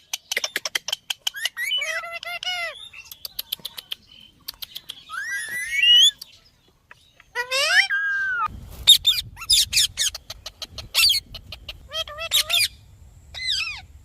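Ringneck parrot calling: a run of sharp clicks and several squawks and chattering calls that glide up and down in pitch. A low rumble joins about halfway through.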